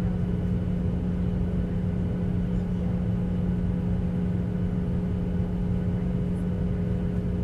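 Jet airliner cabin noise in flight: the turbofan engines and air rush make a steady, even drone with a strong low hum and a few fainter higher tones held constant throughout.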